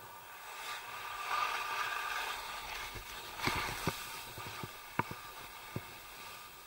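Skis sliding through snow with a hiss that swells and fades over the first few seconds, then a run of sharp clicks and knocks from about three and a half seconds in.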